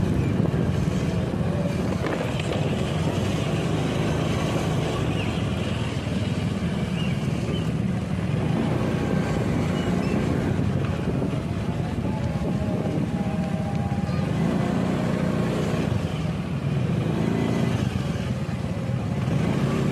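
Steady rumble of motorcycle and road traffic, unbroken throughout.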